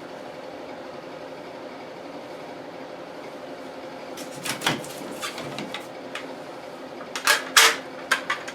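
Sharp knocks and rattles from objects being handled, in two short clusters about four and seven seconds in, over a steady hum.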